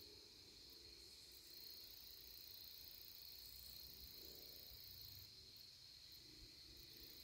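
Near silence with a faint, steady, high-pitched insect chorus.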